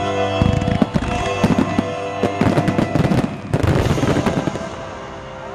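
Aerial fireworks bursting: a rapid run of bangs and crackles that thins out and stops about four and a half seconds in, with music playing underneath throughout.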